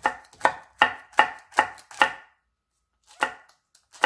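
Chef's knife slicing green chillies on a wooden cutting board: sharp, even knife strokes about two or three a second, stopping for about a second past halfway, then starting again.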